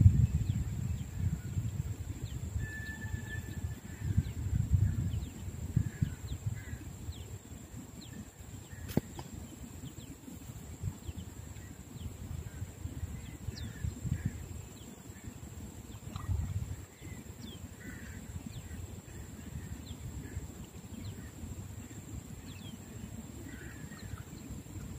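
Outdoor riverbank ambience: scattered short bird calls over a low, uneven rumble, with a steady high-pitched hum throughout. A single sharp click sounds about nine seconds in.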